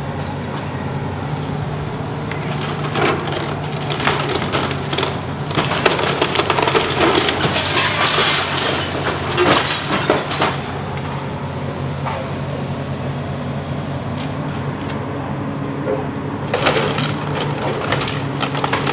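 Hydraulic excavator's diesel engine running steadily while its bucket tears into a wood-frame house. Timber framing and siding crack and splinter in bursts from about three seconds in to about ten seconds, then again near the end.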